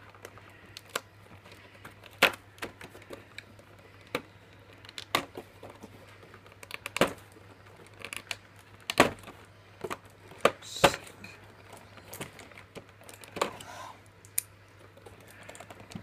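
Irregular clicks and taps of fingers picking at a cardboard advent calendar's door and the clear plastic tray behind it, working a small toy figure out of its tight compartment. The sharpest snaps come about nine and eleven seconds in, over a faint steady low hum.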